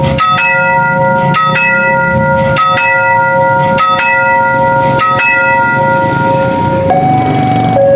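Railroad level-crossing warning bell: an electronic chime strikes in pairs of notes about every 1.2 seconds, each ringing on. About seven seconds in it switches to a steady two-tone alternating alarm, signalling that a train is approaching and the gates are closing.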